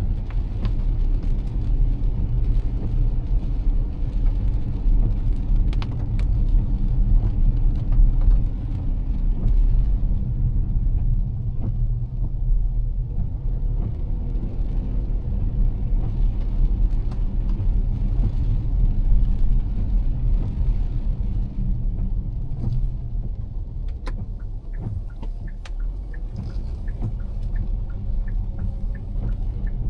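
Car driving through heavy rain, heard from inside the car: a steady low rumble of engine and tyres on the wet road, with rain tapping on the car. A run of sharper ticks comes near the end.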